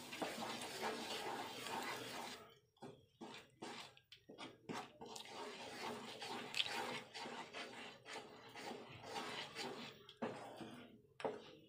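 A wooden spatula stirring thick, milky sabudana kheer in a nonstick pan as it cooks down. There is faint, irregular scraping and stirring, with short gaps between strokes.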